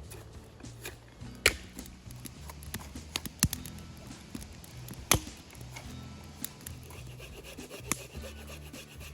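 Firewood being worked by hand: rubbing and scraping of wood with a few sharp knocks, the loudest about a second and a half in, over background music with a low repeating bass.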